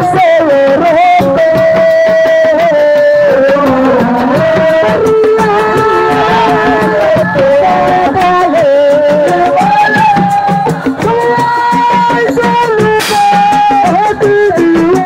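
Senegalese assiko band music played loud: a sung melody of held, sliding notes over fast, steady hand-drum strokes.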